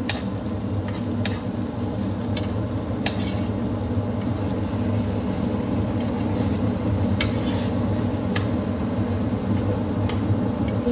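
A steady low hum with about seven light clicks and taps spread through it, as cooking utensils touch the pan of salmon on the stove.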